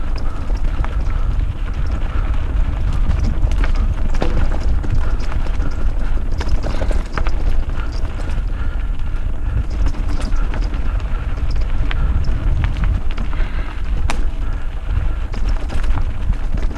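Mountain bike riding over a rough trail: steady rumble from the tyres and wind on the microphone, with frequent short rattles and knocks from the bike over the bumps.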